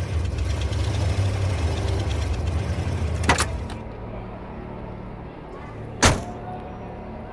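A car engine idling with a low rumble, which stops just after a click a little over three seconds in; then a single sharp car-door slam about six seconds in.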